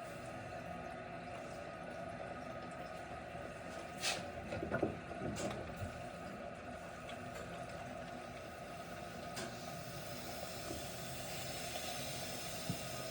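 Steady rush of water flowing through a reverse-osmosis filter system's lines and housings, with a few light clicks and knocks about four to five seconds in.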